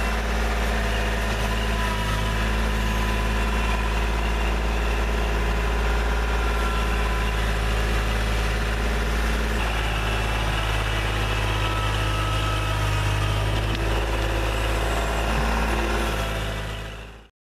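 Kubota backhoe's diesel engine running steadily, with a deep hum and slight shifts in pitch, fading out near the end.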